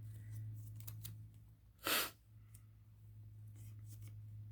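Steady low electrical-type hum with quiet room tone, broken about two seconds in by one short swish, like paper handling or a breath, and a few faint light clicks.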